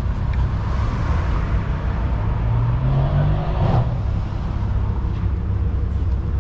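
City street traffic: a steady low rumble, with a car engine speeding up and rising in pitch from about two and a half seconds in, dropping away near four seconds.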